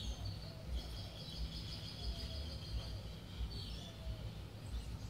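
Background ambience: a steady low rumble with faint, high bird calls, one drawn out for about two seconds near the start.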